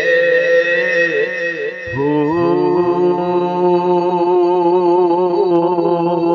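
Slow devotional chanting: a voice holding long, wavering notes over a steady accompaniment, with a new phrase starting about two seconds in.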